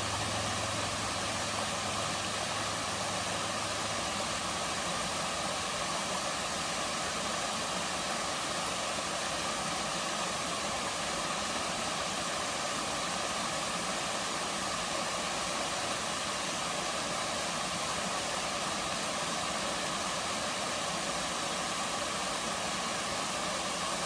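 Waterfall: water falling steadily into its pools, an even, unchanging noise. A low hum underneath stops about four seconds in.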